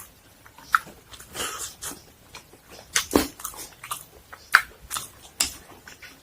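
Close-miked eating: irregular crunching bites and wet chewing of food, with a sharp loud crunch about four and a half seconds in.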